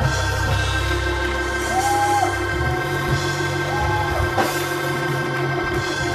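Live gospel praise music from a church band: held keyboard chords over bass and drums, with a cymbal crash about four and a half seconds in.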